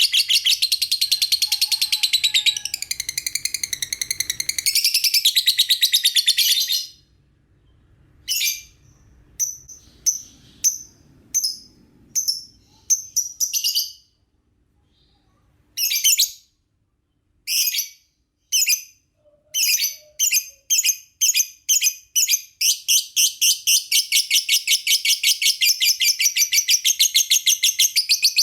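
Lovebird chirping in a fast, continuous, high-pitched chatter. About a third of the way in it breaks into short separate bursts with pauses, then it runs on continuously again for the last few seconds.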